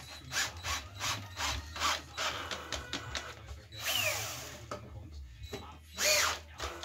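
Cordless drill driving screws through a wooden batten into wall plugs in a concrete wall, run in short bursts with the motor whining up and down. A longer run about four seconds in has its pitch falling.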